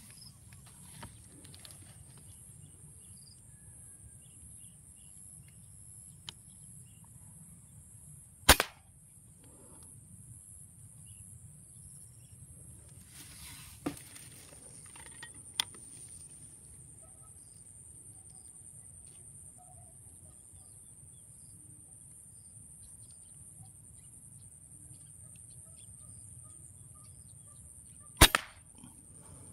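Two sharp air-rifle shots about twenty seconds apart, each a loud crack followed at once by a smaller second snap. A few softer clicks fall between them.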